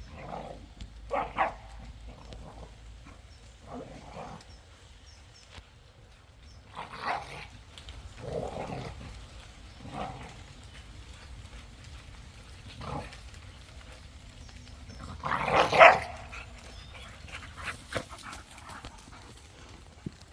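Kangal dogs barking in rough play: short barks scattered through, the loudest a longer cluster of barks about three-quarters of the way in.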